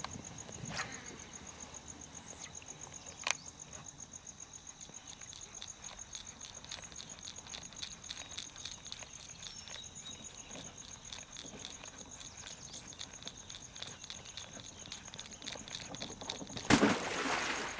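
Insects trill steadily in the marsh, with a sharp click about three seconds in. Near the end a sudden loud splash comes as a redfish strikes the topwater plug.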